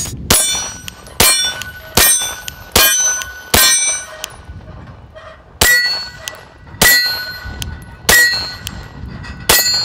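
Nine 9mm shots from a Glock 34 pistol, each followed by the clang and ring of a steel target being hit. The first five come quickly, about 0.8 s apart; after a pause of about two seconds, four more follow at a slower pace.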